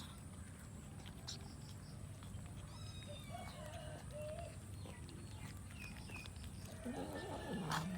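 Cats mewing faintly over a steady low hum, with a few short high chirps around the middle and a louder mew near the end.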